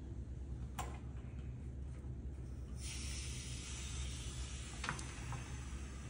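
Air hissing into a vacuum jar as its valve is opened to break the vacuum, starting suddenly about three seconds in and then steady. A low hum runs underneath, with a couple of light clicks.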